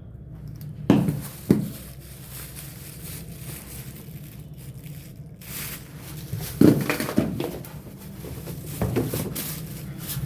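Knocks and rustling as a supplement parcel is handled and opened, over a steady low hum.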